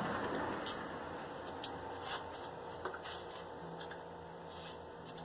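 Scattered light metal clicks and clinks of hand tools and small hardware while a ground wire is being bolted on, irregular and a few per second at most.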